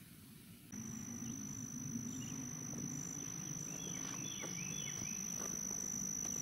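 Field ambience: a steady, high-pitched insect trill starts about a second in and holds, with a few short chirps around the middle and a low rumble underneath.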